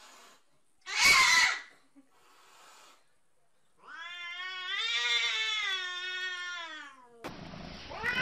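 A cat's aggressive caterwaul toward a rival through a window: a short harsh burst about a second in, then one long drawn-out yowl of about three seconds that rises and then falls in pitch.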